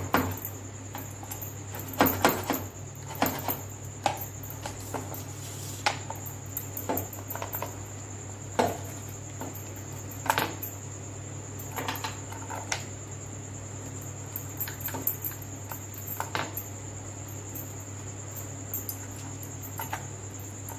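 Large serrated knife cutting through folded fried pooris on a wooden chopping board: irregular short crackles and knocks as the blade presses through and meets the board, a dozen or so spread out with pauses between. A steady low hum and a high whine run underneath.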